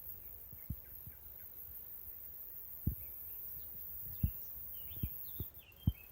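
Small birds chirping faintly in short, high calls, broken by several irregular low thumps that are the loudest sounds.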